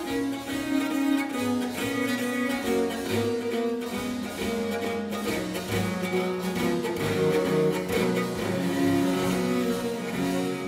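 Viola da gamba bowing a baroque melody of sustained notes over harpsichord accompaniment, fading out near the end.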